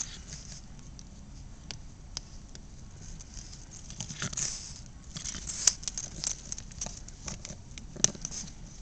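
Boston terrier puppy chewing a toy: irregular small clicks and gnawing noises of teeth on the toy, busier in the second half, with two sharper clicks.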